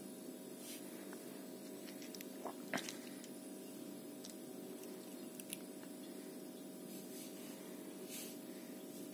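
Quiet room with a steady low hum and a few faint, soft clicks and rustles of handling, the most noticeable about two and a half seconds in.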